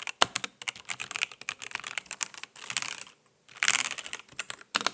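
Typing on a Keychron V1 Max mechanical keyboard with red linear switches: rapid, soft, muted key clicks with a couple of short pauses.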